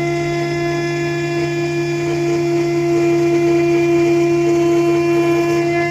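0.8 kW ER11 spindle of a DIY CNC router milling aluminium with an end mill: a steady, high-pitched whine with overtones over the cutting noise, getting a little louder midway.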